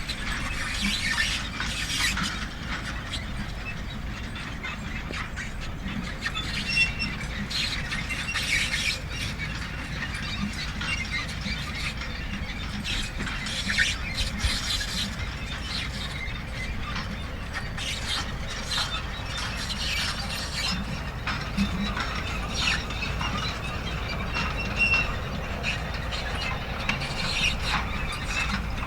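Manure spreader running: a continuous irregular mechanical clatter with squealing and ratcheting from its moving chains and parts, over a steady low rumble.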